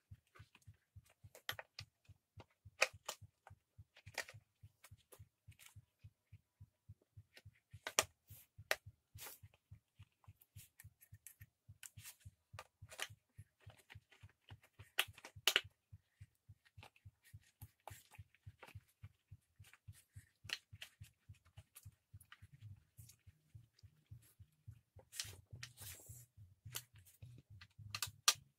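Faint clicks and light knocks of a petrol trimmer's plastic fuel tank and its mounting screws being handled and fastened by hand. Under them runs a steady low pulsing about three to four times a second.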